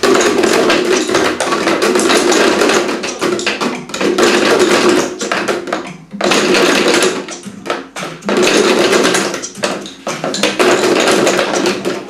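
Many wooden drumsticks beating on upturned plastic buckets at once, a dense clatter that comes in phrases of about two seconds with brief pauses between them.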